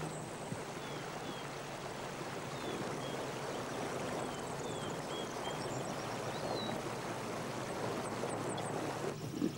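Steady rushing of a stony mountain river, with a few faint, high, short chirps through the middle.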